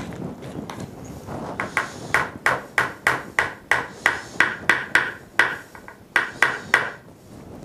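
Metal spoon clacking repeatedly against the side of a plastic mixing bowl while thick hummus is stirred, about three or four sharp clacks a second, starting a second or so in and stopping shortly before the end.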